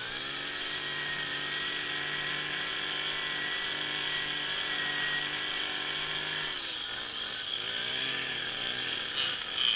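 Small two-stroke engine of handheld lawn equipment running at high speed with a steady tone, then about two-thirds of the way through its pitch drops and swings up and down as the throttle is eased off and opened again.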